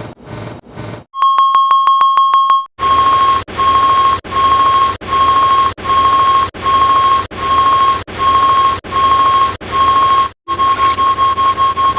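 Electronic beeping at one high pitch. It starts with a quick rattle of beeps, then settles into a steady series of half-second beeps about three quarters of a second apart, and near the end switches to faster, shorter beeps. For the first second a different, lower pulsing sound repeats about three times a second.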